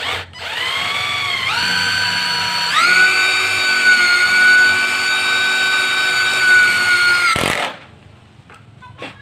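Dong Cheng impact drill running under the trigger while driving a screw: its motor whine steps up in pitch twice in the first three seconds, holds steady and high, then stops about seven and a half seconds in.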